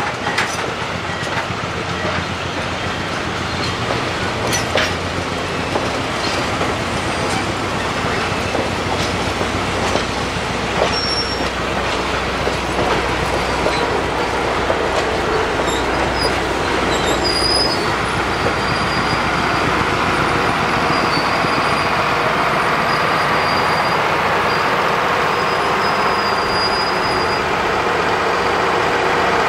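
Passenger coaches rolling slowly past on the rails: wheels clicking over rail joints, with brief high squeals from the wheels, and a steadier, slightly louder rolling rumble after a change about two-thirds of the way in.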